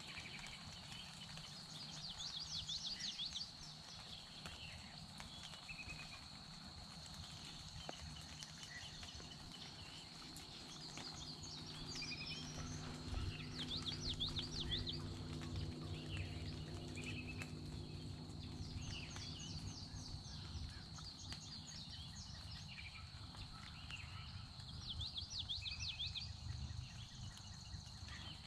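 Wild songbirds singing: short, rapid, high trilled phrases repeated every few seconds. Under them run a thin steady high-pitched tone and a faint low rumble that swells in the middle and fades again.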